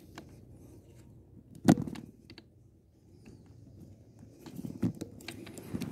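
A single sharp crack of an air rifle firing a pellet, about one and a half seconds in; it is the loudest sound, and the shot hits a wild duck on the water. In the last second or so comes a run of faint crackling and patter.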